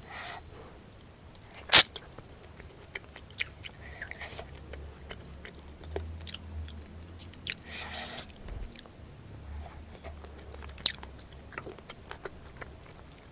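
Close-miked eating: chewing and biting with crisp crunches. A sharp crack about two seconds in is the loudest sound, with a longer crunching stretch around eight seconds.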